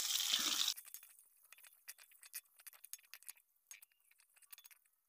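Sliced shallots sizzling in hot oil in a wok, the hiss cutting off abruptly under a second in; then scattered faint clinks and scrapes of a metal spatula stirring against the wok.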